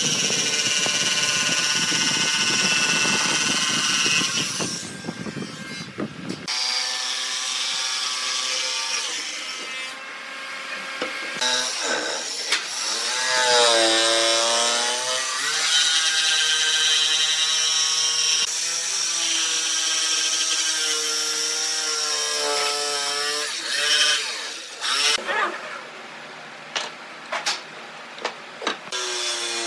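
Corded electric jigsaw cutting curved scroll shapes in a thick pine board, its motor whine rising and falling in pitch as the blade works round the curves. Near the end the saw stops and a few short knocks follow as a cut-out piece is freed.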